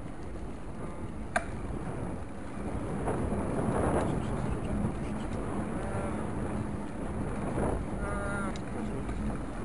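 Wind buffeting and low road rumble on a moving sports camera's microphone, with a faint steady hum underneath. A single sharp click about a second and a half in.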